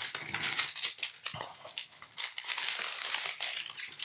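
Thin paper protective wrap being peeled off a new tablet and crinkled in the hands: a continuous run of dry crackling and rustling with many small sharp crackles.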